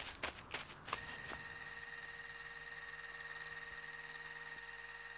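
A few footsteps in the first second, then a steady motor hum with a high whine that carries on unchanged.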